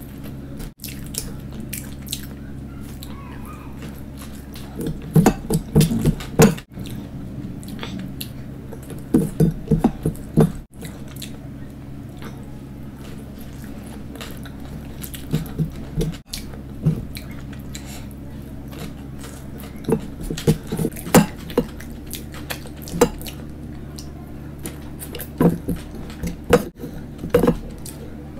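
Close-miked eating by hand: fingers working veg pulao against a steel bowl and mouthfuls being chewed. These come as bursts of wet clicks every few seconds over a steady low hum.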